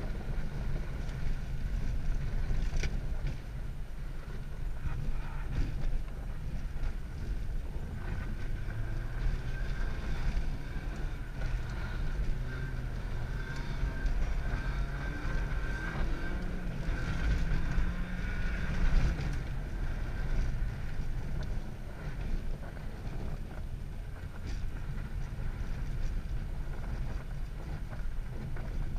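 Car engine running at varying revs, rising and falling as the car is driven and drifted on ice, with tyre and wind noise, heard from inside the cabin.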